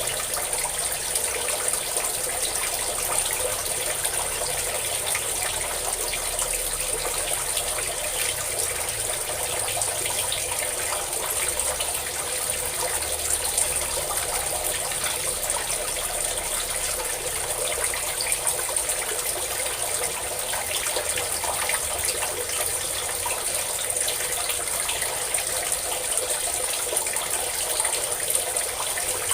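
A steady stream of water pouring and splashing, running on without a break.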